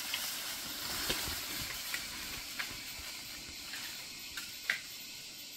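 Steady high hiss with a few short, sharp clicks or snaps scattered through it. The loudest click comes near the end.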